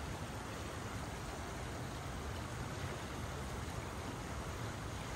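A river flowing: a steady, even rushing of water with no breaks.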